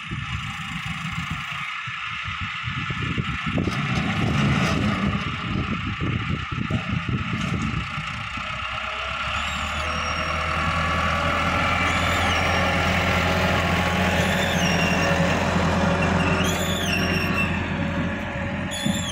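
Farm tractor's diesel engine running under load as it pulls a seed drill sowing cotton. The engine grows louder and steadier as the tractor comes close.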